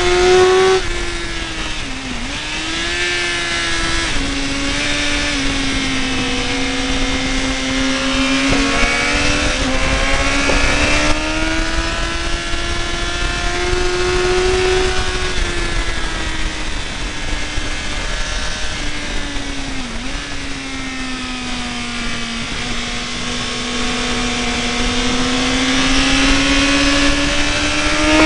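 Yamaha R1 inline-four sportbike engine heard from its own onboard camera at speed on track. Its pitch rises and falls steadily through the corners, with brief sharp dips about two seconds in and about twenty seconds in, over constant rushing wind noise.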